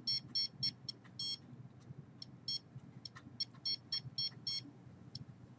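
Handheld RF signal detector beeping in rapid short high beeps, about five or six a second, that break off after about a second, come back as a few scattered beeps, then run again for about a second and a half before a last single beep. The beeps signal that it is picking up a radio-frequency signal, which the user takes for microwave signals aimed at his hand.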